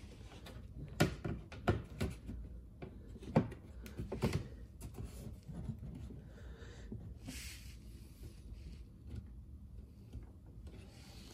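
A plastic rear apron piece knocking and clicking against a car's bumper as it is held and lined up by hand: about six sharp knocks in the first four seconds, the loudest about three and a half seconds in, then faint rustling.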